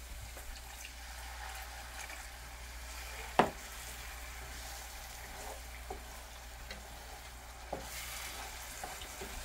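Food sizzling steadily in a cooking pan as it is stirred, with one sharp clack about three and a half seconds in and a few lighter clicks later.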